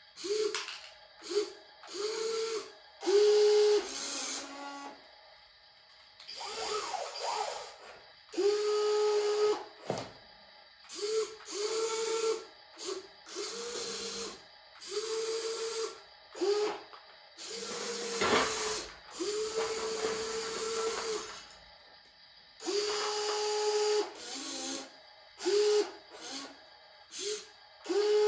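Remote-control toy excavator's small electric motors whining in short start-stop bursts, from a fraction of a second to a few seconds each, as the boom, arm and bucket move. Each burst is a steady mid-pitched whine over a higher hiss, with a single sharp knock about ten seconds in.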